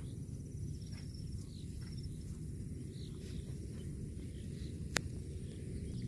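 Outdoor rural ambience: a steady low rumble with faint high chirps near the start and a single sharp click about five seconds in.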